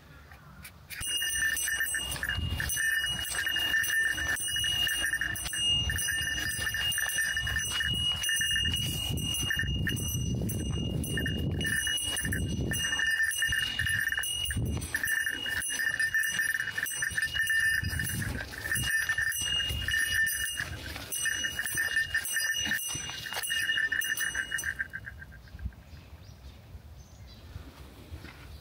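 Yobikomi-kun Mini DX, the small Japanese shop-promotion jingle player, playing its electronic looping melody through its little speaker, with low uneven rumbling beneath. The tune starts about a second in and stops a few seconds before the end.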